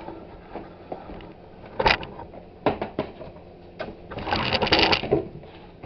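Box and packaging being handled during an unboxing: a few sharp knocks and clicks, then about a second of scraping and rustling a little after the middle.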